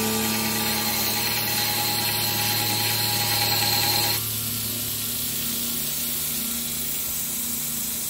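Belt grinder running with a small metal ring pressed against the belt, grinding with a steady hiss; about four seconds in the grinding stops and only the motor and belt run on.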